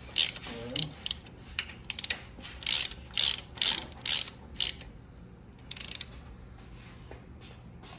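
Hand ratchet clicking in short bursts as it turns a bolt on a round steel cover plate of an engine block, a burst about every half second, stopping about six seconds in.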